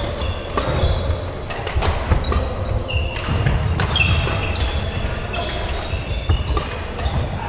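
Badminton rally: rackets striking the shuttlecock in repeated sharp cracks, with court shoes squeaking briefly on the floor, echoing in a large sports hall over a steady low rumble.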